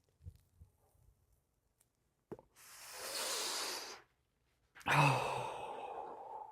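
A man takes a breath in for about a second, then about a second later lets out a long, loud exhale that starts strongly and trails off, as he blows out smoke from a blunt.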